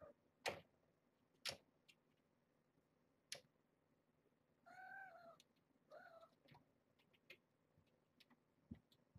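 Cat meowing twice, two short high-pitched meows about five and six seconds in. Before them come three sharp clicks in the first few seconds, the loudest sounds here.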